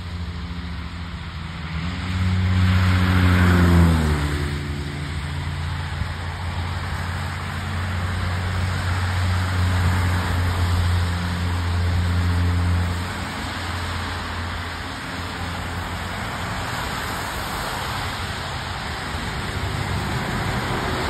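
Car traffic on a wet road, with a steady hiss of tyres on the wet pavement. About three to four seconds in, a vehicle passes close and its engine note drops in pitch as it goes by. A low engine hum carries on until about halfway through, then fades.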